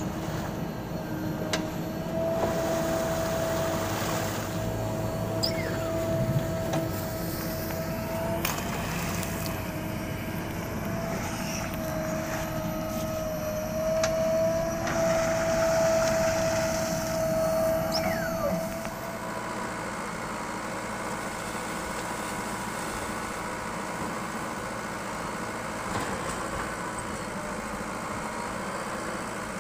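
JCB backhoe loader's diesel engine working under load, with a steady whine over the engine noise and a few clicks; about two-thirds of the way through the whine stops and the engine settles to a lower, steady run.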